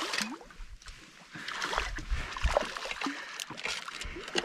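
A hooked fish thrashing and splashing at the water's surface beside a canoe, with irregular splashing and water noise and a few dull low knocks about halfway through.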